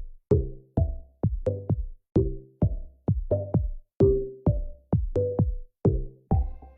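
Electronic background music with a steady beat: sharp, short decaying notes about two a second.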